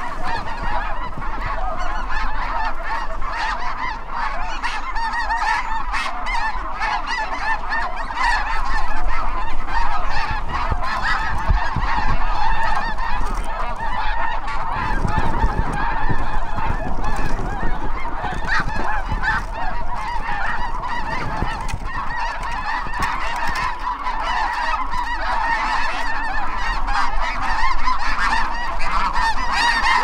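A large flock of snow geese calling overhead: a dense, unbroken clamour of many overlapping honks.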